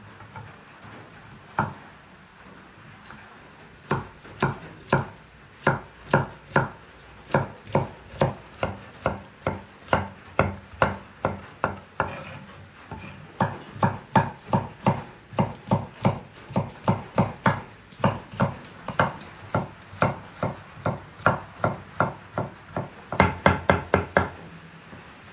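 Knife chopping carrots on a wooden cutting board: steady strikes about two or three a second, pausing briefly midway, then a quick run of rapid chops near the end.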